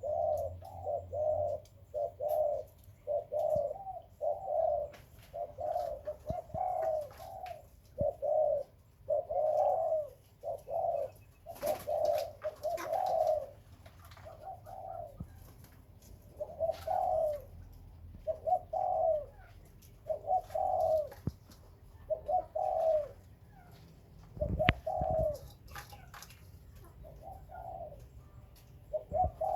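Spotted dove cooing, repeating short coo phrases again and again, rapidly at first and then in spaced groups. A low thump sounds about 25 seconds in.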